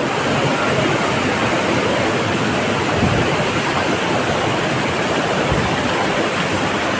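Waterfall rushing, loud and steady.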